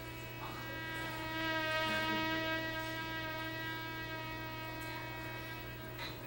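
Hydrogen flame burning at the tiny hole atop a copper can, singing a steady humming tone with many overtones that swells about a second and a half in and then eases. Air is drawn in at the bottom as it burns, so the hydrogen–air mixture inside keeps changing on its way to exploding.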